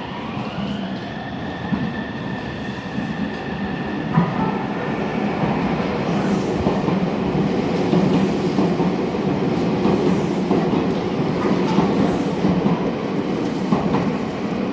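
Meitetsu 3500 series electric train running through an underground station platform without stopping: a steady rumble of wheels on rail that grows louder, with short high hissing squeals about every two seconds in the second half.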